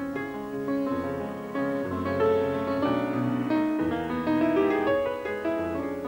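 Instrumental dance music, with piano prominent over sustained chords and a moving bass line.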